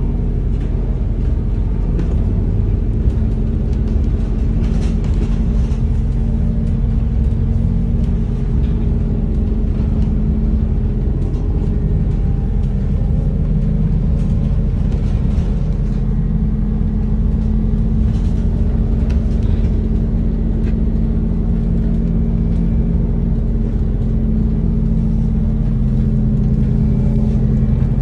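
Bus engine running with a steady low drone, heard from inside the passenger cabin.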